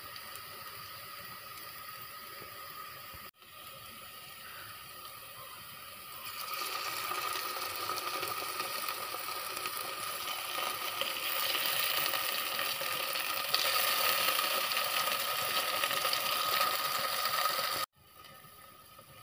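Sliced onions frying in hot oil in an aluminium pot: a steady sizzle that grows louder about six seconds in and again midway, then breaks off abruptly near the end.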